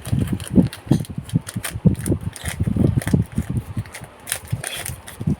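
Booster-pack wrapper and trading cards being handled: irregular rustling and crinkling with small ticks and taps.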